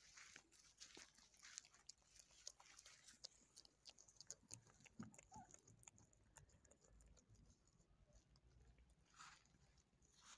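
Cat chewing meat: faint, irregular crunching and clicking, busiest in the first few seconds and sparser later.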